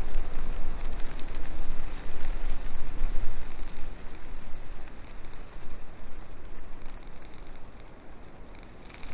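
Wind noise on the microphone: a loud, even rushing hiss with a deep rumble, swelling and dipping in gusts and easing off near the end.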